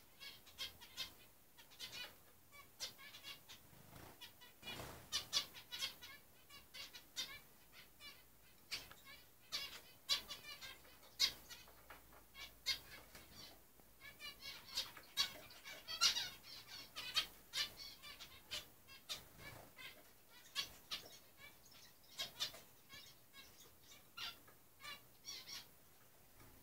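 Many small caged ornamental birds chirping, their short calls overlapping in a busy, continuous chatter.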